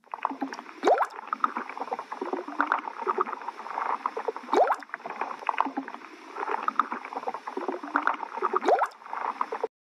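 Underwater bubbling and gurgling sound effect of a Snapchat aquarium lens, with a rising bubbly sweep three times, about every four seconds.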